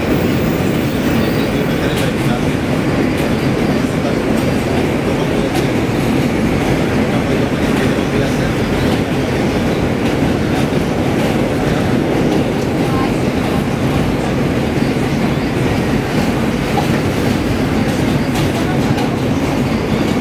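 A New York City Subway J train running at speed, heard from inside the car: the steady rumble of wheels on the rails, with faint clicks throughout.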